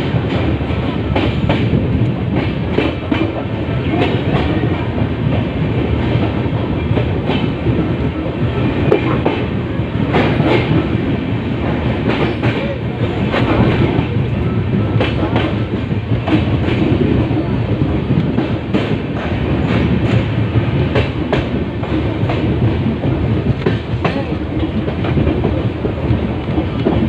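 Brahmaputra Mail's passenger coaches rolling along the track: a steady rumble with the clickety-clack of wheels over rail joints, heard from the moving coach.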